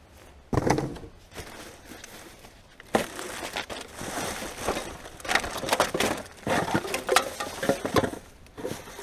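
Rubbish being rummaged through in a bin: plastic packaging and bags crinkling and crunching, with irregular knocks. A sharp knock comes about half a second in, and the rustling gets busier from about three seconds in.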